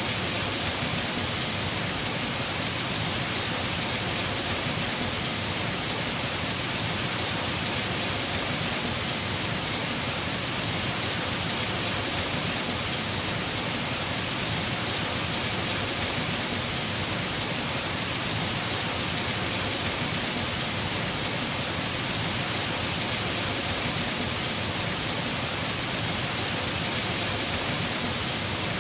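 Heavy rain falling steadily on a house roof, a dense even hiss with no breaks.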